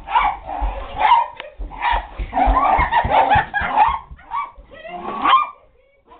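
A dog barking excitedly and repeatedly, mixed with thumps of running footsteps and camera handling.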